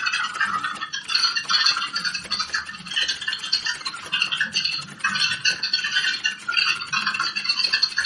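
Computer keyboard typed on quickly and continuously, a dense stream of key clicks with a few brief pauses, at about 47 words a minute.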